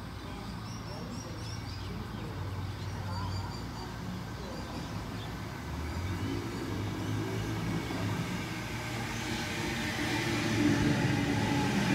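Sydney Trains Waratah Series 2 (B set) electric train approaching and pulling in alongside the platform, its hum and wheel noise growing steadily louder and loudest near the end as it draws level.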